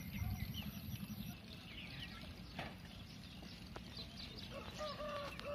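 Young chickens, a naked-neck among them, peeping faintly in short high chirps, with a few light clicks. Near the end comes one longer, held call.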